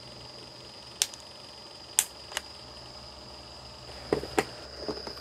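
Hot glue gun and plastic enclosure being handled while terminals are glued in place: a few sharp plastic clicks about one, two and two and a half seconds in, then softer knocks about four seconds in. A faint steady high whine sits underneath.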